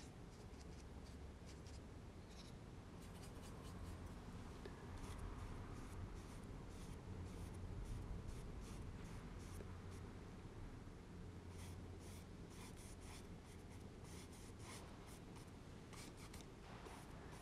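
Paintbrush scratching and brushing across textured watercolour paper in quick, short strokes, faint, over a low steady room hum.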